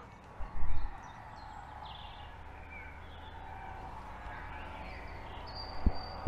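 Faint birdsong: small birds chirping and whistling at scattered moments, over a low outdoor rumble. A loud low thump comes just under a second in and a shorter one near the end.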